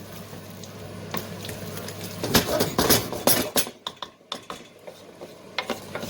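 A spoon stirring a pot of watery curry, scraping and clinking against the pan. The knocks come thickest between about two and three and a half seconds in, over a steady low hum.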